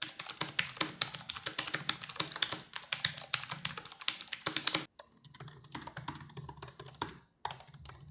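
Fast typing on a Vissles LP85 low-profile keyboard with optical switches, a dense run of very clicky keystrokes. The clicking is louder for about the first five seconds, then after a sudden break goes on more quietly.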